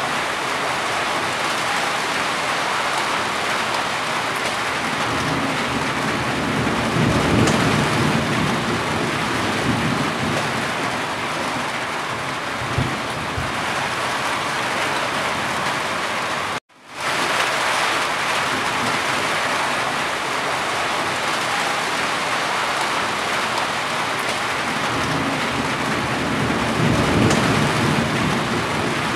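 Steady heavy rain falling on a roof and running off its edge. It swells twice with a low rumble, about a quarter of the way in and again near the end. The sound cuts out for an instant a little past halfway.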